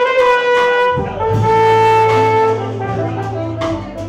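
Live band music led by a trumpet-style brass horn playing two long held notes, with acoustic guitar and drums accompanying.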